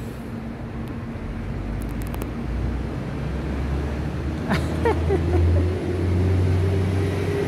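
Steady low rumble of a nearby motor vehicle engine, getting louder about four and a half seconds in, when a short wavering higher-pitched sound also comes.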